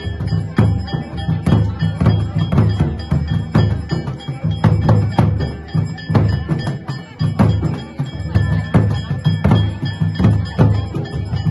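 Temple drumming for a devotional puja: drums beaten in a steady beat, with metal percussion ringing over them.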